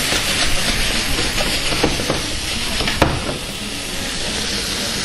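Snails and mushrooms frying in olive oil in a hot stainless-steel sauté pan, sizzling steadily while being stirred, with a few sharp clicks of the utensil against the pan. The loudest click comes about three seconds in, and the sizzle runs on more evenly after it.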